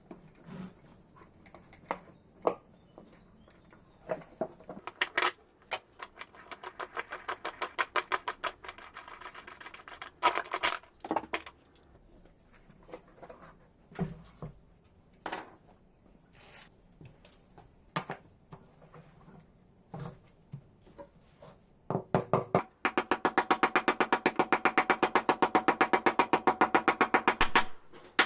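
Repair work on a washing machine: scattered knocks and clinks of tools and metal parts, with two runs of rapid, evenly spaced mechanical clicking from a tool, a shorter one early and a longer, louder one of about five seconds near the end that stops abruptly.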